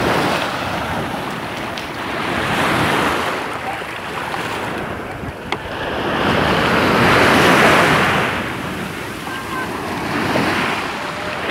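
Small waves washing in over the shallows, swelling and easing every few seconds, with wind on the microphone. One sharp click about halfway through.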